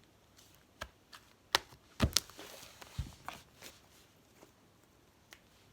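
Close handling noises: a handful of short, sharp clicks and taps, the loudest pair about two seconds in, with brief rustling between them.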